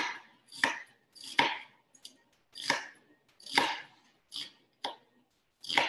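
Kitchen knife chopping vegetables on a cutting board: about eight separate strokes, a little under a second apart and unevenly spaced.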